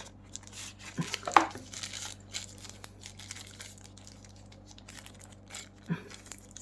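Packaging crinkling and rustling as box contents are handled and unwrapped, with the loudest burst of crinkling about a second in and a short sharp rustle near the end.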